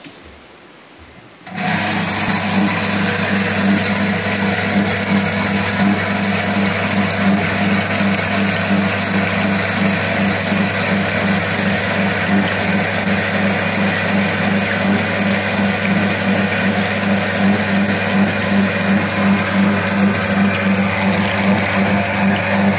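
A switch clicks, and about a second and a half later the electric pump of a stainless steel catering tank unit starts and runs steadily, a loud motor hum with a fast, even pulsing.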